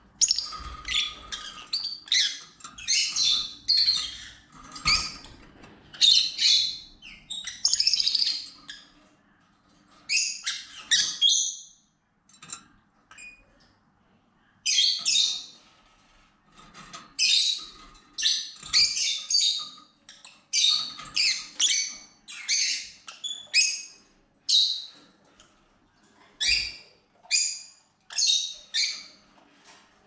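Peach-faced lovebirds chirping and squawking: short, high-pitched calls in quick runs, with a pause of about two seconds roughly twelve seconds in.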